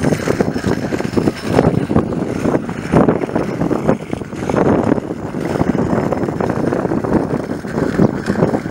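Diamond DA42 NG's twin Austro AE300 diesel engines and propellers running at low taxi power as the aircraft rolls along the runway after landing, mixed with gusty wind on the microphone that makes the level rise and fall unevenly.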